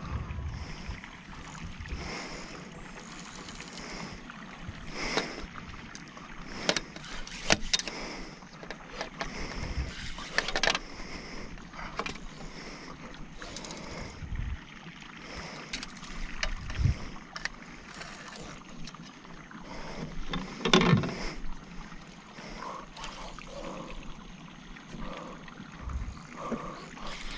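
Scattered knocks and rustles of fishing gear being handled in a small boat, over a steady hiss of water around the hull, with one louder thump about three-quarters of the way through.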